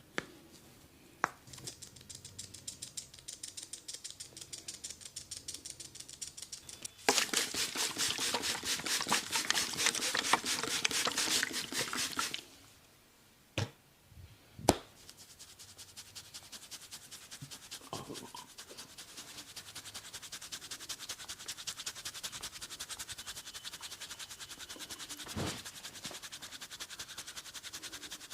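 Hands rubbing and scratching fast over hair and skin close to the microphone during a head massage. The strokes are soft at first, turn loud and dense for about five seconds, stop abruptly with two sharp clicks, then carry on at a steady rapid pace.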